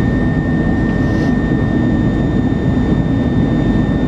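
Cabin noise inside an Airbus A321 on descent: a steady, deep rumble of airflow and jet engines, with a thin, constant high tone running over it.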